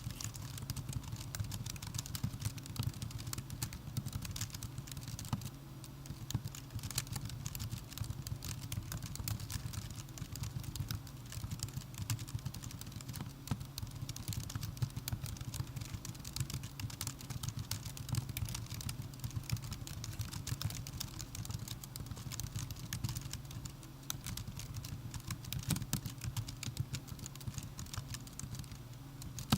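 Typing on a MacBook Pro laptop keyboard: a quick, continuous stream of key clicks.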